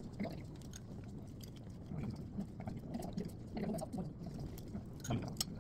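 Quiet eating sounds: a metal spoon clicking and clinking against a ceramic bowl a few times, over a faint murmur of background voices.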